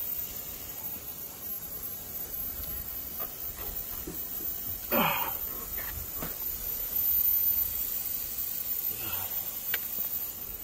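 Steady hiss from the overheated skid steer's engine as leaked fluid steams and smokes off the hot motor: it is overheating and leaking, possibly from a cracked line. About halfway through comes one short squeal that falls in pitch.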